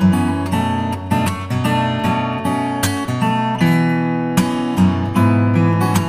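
Background music: acoustic guitar with plucked and strummed notes at a steady pace.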